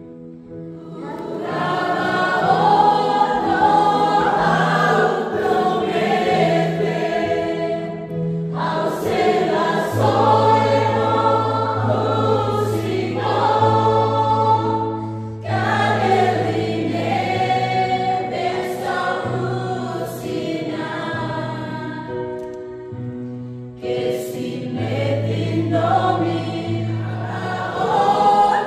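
A choir singing a church hymn over long, held low accompanying notes, in phrases with short breaks between them.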